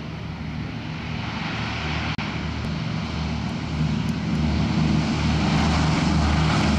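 A Boeing B-17 Flying Fortress's four radial piston engines droning in a flyby, growing louder about four seconds in as the bomber comes closer.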